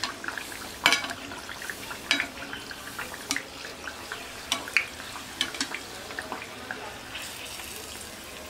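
Gram-flour batter on a stuffed pav sizzling and crackling as it deep-fries in hot oil, with frequent sharp pops. Hot oil is ladled over its top with a slotted spoon.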